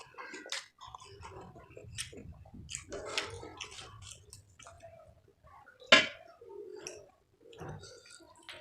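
A person chewing food close to the microphone: wet, irregular mouth clicks and smacks, with one louder sharp click about six seconds in.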